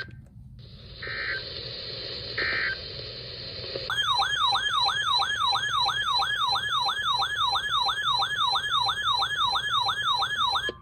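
Two short bursts of EAS digital data tones over radio hiss, then a loud warbling alert tone that starts about four seconds in. It sweeps up and down about three times a second until the end.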